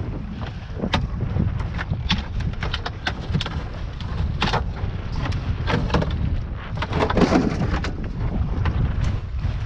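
Wind buffeting the microphone with a steady low rumble, over irregular knocks and clatters of handling inside a small fishing boat.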